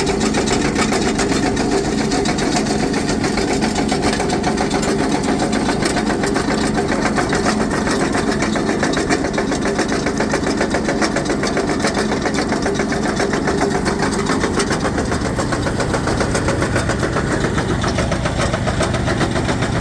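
Rock-crushing plant for gold ore running steadily and loudly, with a jaw crusher chewing rock in a dense, continuous rattle over the hum of the machinery.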